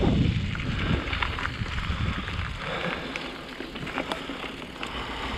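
Electric mountain bike being ridden down a trail: wind on the microphone and tyre-and-suspension rumble, loudest in the first second and then easing, with scattered clicks and rattles from the bike.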